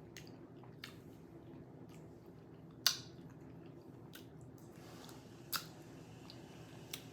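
A person chewing a shrimp quesadilla with wet mouth clicks and smacks, about six sharp ones spread out, the loudest about three seconds in, over a low steady background hum.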